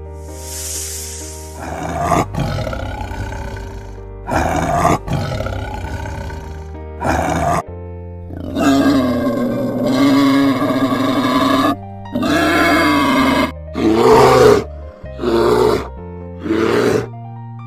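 A short hiss from a snake, then a series of wild boar grunts and squeals, then calls from a bear. Each call lasts a second or two with short gaps between them, over steady background music.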